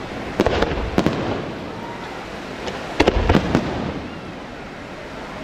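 Aerial firework shells bursting: sharp bangs in two clusters, three within the first second and three more about three seconds in, each trailing off into an echoing rumble.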